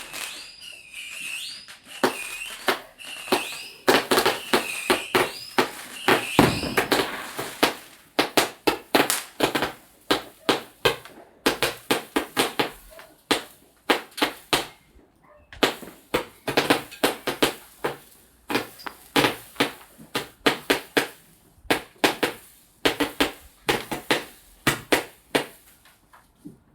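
Fireworks going off in a rapid barrage. For the first several seconds, repeated wavering whistles sound over sharp bangs; then comes a long string of bangs and crackles, several a second, which stops just before the end.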